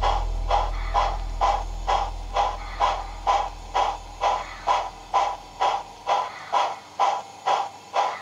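Model steam locomotive's sound chuffing steadily at about two chuffs a second as it creeps through the yard. A low hum underneath fades away over the first six seconds.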